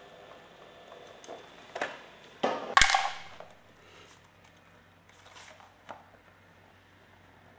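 Faint steady hum of a Weldy GW800 automatic membrane welder fading out, then a few sharp knocks, the loudest about three seconds in. After that come light clicks and scrapes of a utility knife cutting the plastic roofing membrane.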